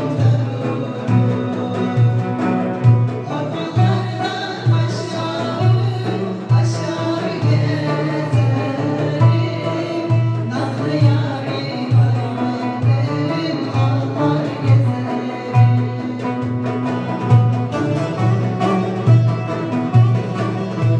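Live Turkish folk song: a woman singing over plucked bağlama and acoustic guitar, with a frame drum and darbuka keeping a steady beat.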